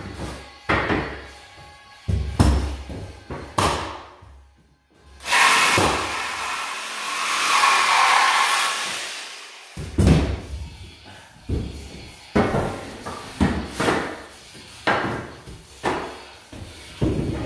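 Hardwood floor boards being knocked into place: sharp wooden knocks, a few in the first seconds and then a steady run of about one a second in the second half. In between, a cordless power tool runs steadily for about four seconds.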